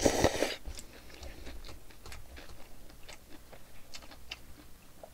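A brief slurp of cold bibim-guksu noodles right at the start, then faint chewing with small scattered mouth clicks.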